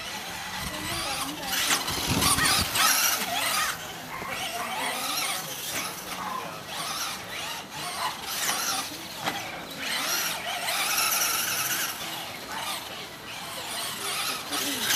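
Traxxas Slash RC short-course truck driving hard on dirt: its electric motor and gears whine, rising and falling again and again as it speeds up and slows down, over the scrabble of its tyres. A low thud comes about two seconds in, as it lands from a jump.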